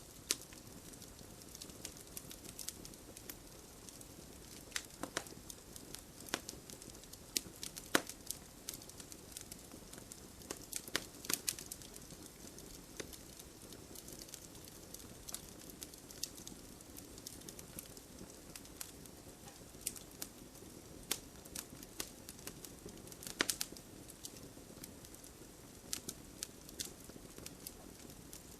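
Campfire crackling: a steady low hiss of burning wood with irregular sharp pops and snaps, a few louder pops about 8, 11 and 23 seconds in.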